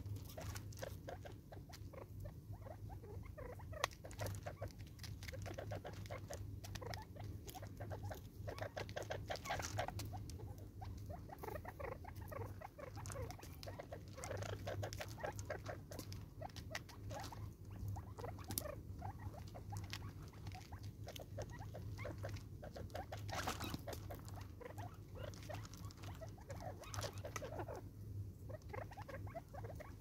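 Francolins pecking and scratching at food on a gravel-topped feeder: an irregular, steady patter of small taps and clicks, over a steady low hum.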